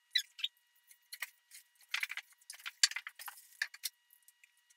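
PVC cement dauber clinking against its small metal can and scraping as glue is dipped and spread on a PVC coupler and pipe end. It comes as a quick, irregular run of light clicks and scratches.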